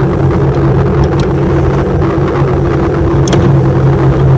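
A steady, loud mechanical drone with a low hum, and a couple of faint clicks.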